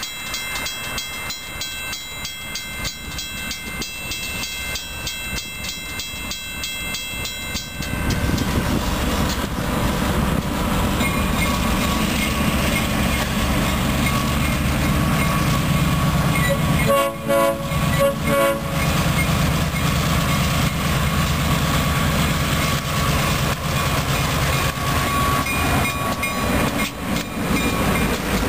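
Grade-crossing bells ringing as the gates lower. About 8 seconds in, a diesel freight train led by an EMD MP15AC switcher and GP38-2 locomotives arrives and drowns them out: loud engine rumble, a horn sounding, and wheels clattering over the crossing as it passes.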